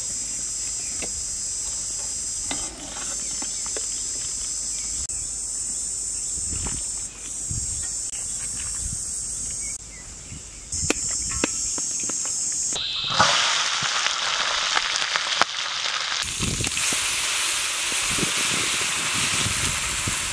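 Insects shrill steadily, broken by a few short knocks and clicks. About two-thirds of the way through, a loud, even frying sizzle from vegetables in a hot wok takes over.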